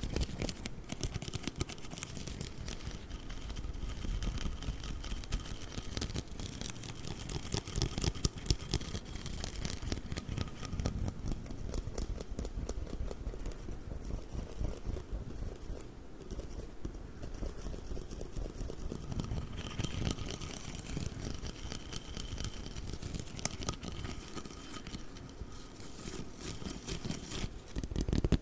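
Close-miked tapping and scratching on an inch rule, a dense stream of quick clicks and scrapes, with a faint ringing tone now and then.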